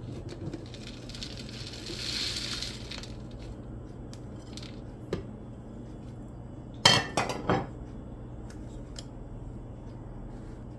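Dried currants being added to a glass mason jar: a soft rustling pour for about two seconds near the start, then a few sharp clinks of a utensil against the glass jar about seven seconds in, with light ticks in between.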